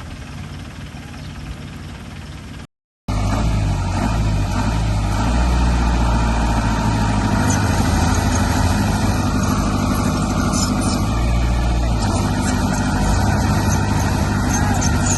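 Heavy machine engine, dump truck or bulldozer, running steadily. A quieter rumble breaks off in a short silence about three seconds in, and the louder, even engine sound takes over.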